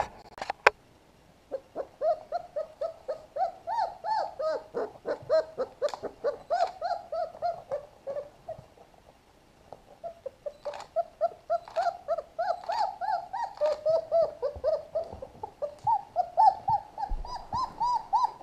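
Three-week-old puppies whimpering and whining, a quick series of short, high, rising-and-falling cries, several a second, with a pause of about two seconds midway.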